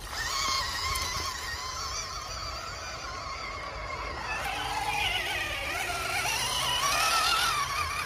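Small electric motors and gearboxes of scale RC 4x4 trucks whining as they wade through a river, the pitch wavering up and down with the throttle. The whine grows louder in the second half.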